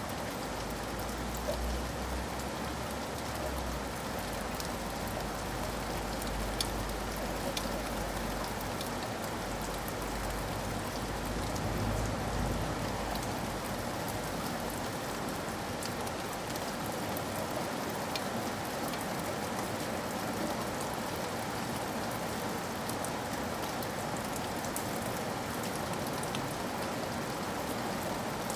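Heavy rain falling on a window pane: a steady hiss with scattered sharp drop taps. A low rumble sits under it for about the first half.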